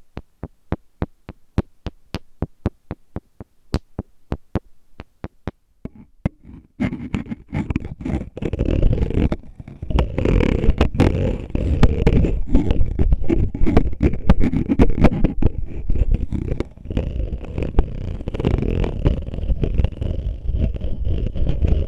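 Fingers tapping an oil bottle, about four light taps a second, then from about seven seconds in, steady rapid scratching and rubbing on the bottle.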